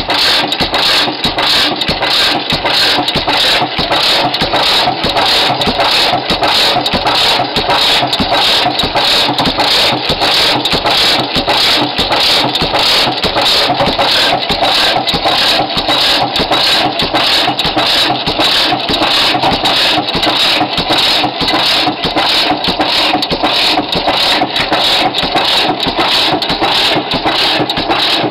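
1922 Fairbanks Morse 15 hp Model Z stationary engine running steadily, a fast, even mechanical clatter of its working parts with no let-up.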